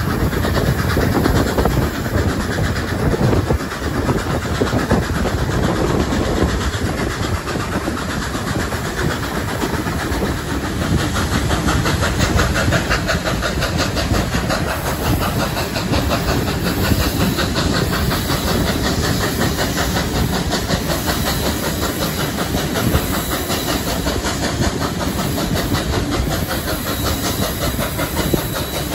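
Onboard sound of a train hauled by steam locomotive 5917, an NSW 59 class 2-8-2, heard at an open carriage window: a steady clatter and rumble of carriage wheels on the rails, mixed with the hiss of steam from the working locomotive ahead.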